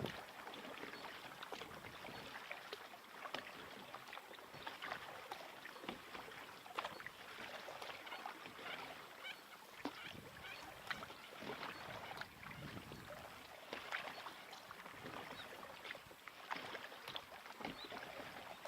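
Packraft paddle strokes dipping and splashing in the water, a run of repeated small splashes and drips.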